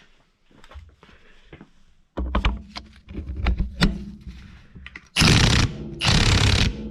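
Light clicks and knocks of handling, then, from about five seconds in, a Milwaukee cordless impact wrench hammering in two short bursts as it loosens a bolt on a Subaru EJ20 engine.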